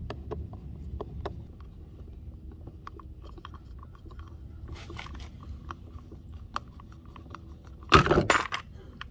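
A screwdriver turns out the kayak rudder's pivot screw against its lock nut, with small irregular clicks and scrapes of metal on plastic. About eight seconds in there is a brief loud clatter as the screw comes free and the rudder's spring drops out.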